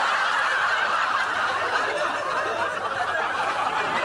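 Studio audience laughing, a steady wash of many voices.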